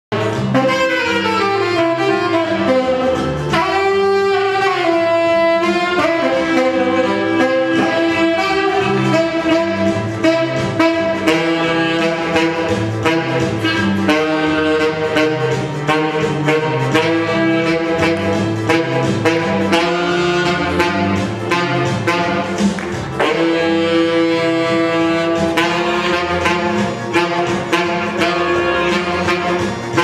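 Live jazz: a saxophone plays a sustained, moving melody line over a walking low bass part and a steady beat.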